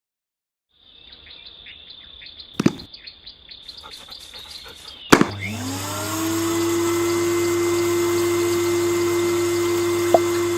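Cordless handheld vacuum switched on with a sharp click about halfway through; its motor spins up with a rising whine and settles into a steady run.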